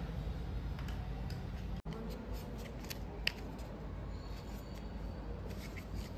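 Lipstick case and cardboard box being handled: a few light clicks and taps, the loudest about three seconds in, over a steady low rumble.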